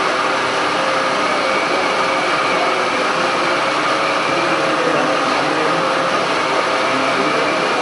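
Steady machine noise with a faint constant whine, unchanging throughout.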